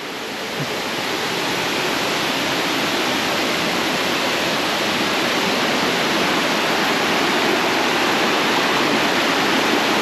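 Waterfall cascading into a rocky pool: a steady, dense rush of falling water.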